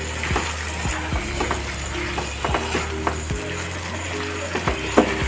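Spoon stirring soya chunk curry in a pan as it sizzles, with several sharp knocks of the spoon against the pan. Faint background music with short held notes runs underneath.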